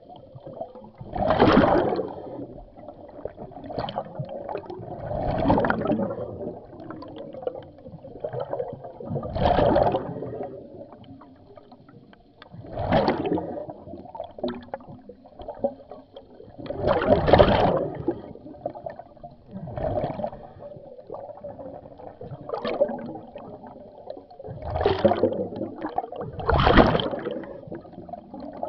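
Scuba diver's exhaled bubbles rushing and gurgling out of the regulator, recorded underwater, in a surge every three to four seconds with each breath.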